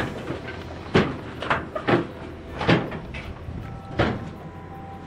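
Hitachi hydraulic excavator running, with about half a dozen sharp metal clanks at uneven intervals as its arm and bucket are worked against the lorry's steel loading deck; the clanks stop about four seconds in, leaving the steady engine hum.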